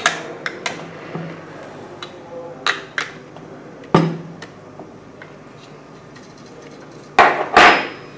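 Spanner and bike hardware clinking as the front wheel's nylock axle nut is done up: several sharp metallic clicks, a louder ringing knock about four seconds in, and a short rattling clatter near the end.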